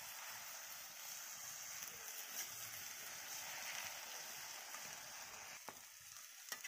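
Chopped cabbage and potato frying in an iron kadhai: a faint, steady sizzle, with a couple of sharp clicks near the end.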